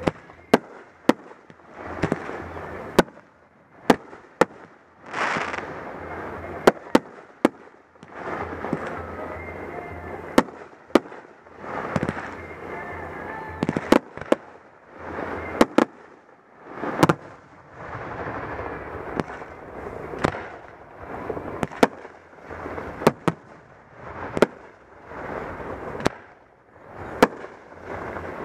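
Fireworks display: aerial shells bursting in a long series of sharp booms, about one a second and sometimes in quick pairs, over a continuous rumbling haze. There is a brief hiss about five seconds in.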